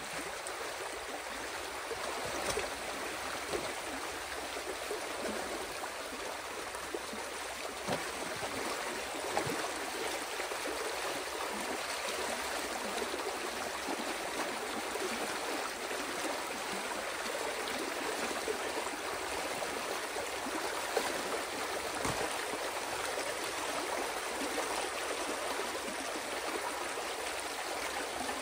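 Water rushing steadily through a channel cut in a beaver dam as the pond behind it drains, with a few faint knocks.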